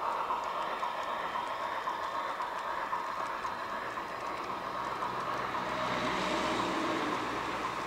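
Garden-railway model freight train of ballast hopper wagons rolling along the track: a steady running rumble of small metal wheels on the rails with faint clicks, swelling a little about six seconds in.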